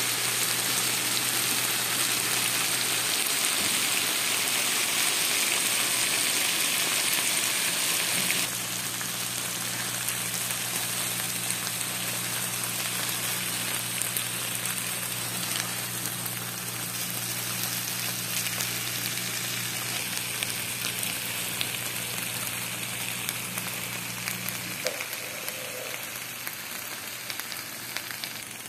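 Thin potato slices frying in hot oil for homemade potato chips: a steady sizzle with small crackles, over a low hum that stops near the end.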